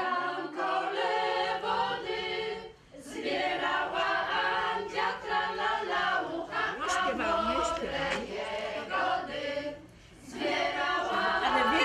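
A group of voices singing a song together, the phrases breaking off briefly about three seconds in and again near ten seconds.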